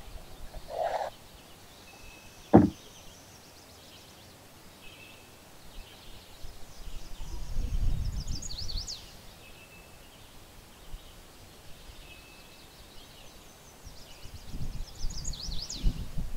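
Birds singing on a lakeshore, with two runs of quick falling high notes, one near the middle and one near the end. A single sharp knock about two and a half seconds in, and low rumbling noise that comes and goes near the middle and end.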